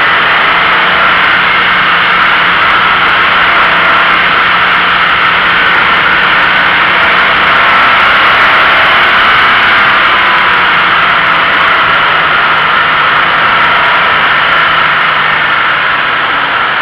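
Toyota GT86 driving at speed on a winding road, heard from a camera mounted low on the outside of the car: loud, steady rush of wind and tyre-on-asphalt noise over a faint flat-four engine note that drops a little near the end.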